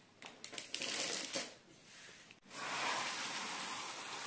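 Packaging handled on a wooden table: light clicks and rustling, a sharp knock about halfway through, then a steady scraping hiss for about two seconds as a cardboard kit box slides across the wooden tabletop.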